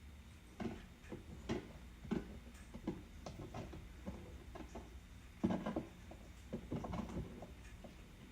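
Pet turtle making a series of irregular knocks and taps, one or two a second, with the loudest about half a second and five and a half seconds in.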